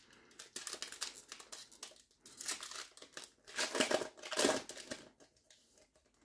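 Wrapper of a Panini NBA Hoops trading-card pack crinkling and tearing as it is opened, in irregular bursts that are loudest about four seconds in.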